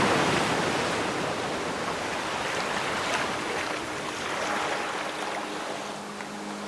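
Ocean waves washing on a shore: a wave draws back and fades, and a smaller one swells and recedes about midway.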